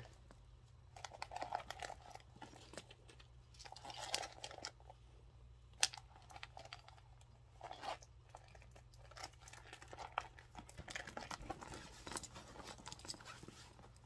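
Items being rummaged through inside a handbag: soft rustling and crinkling with scattered light clicks and taps, one sharper click about six seconds in, over a faint steady low hum.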